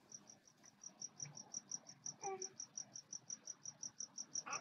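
Faint high-pitched chirping, an even pulse repeating about five times a second, with a few soft brief sounds underneath.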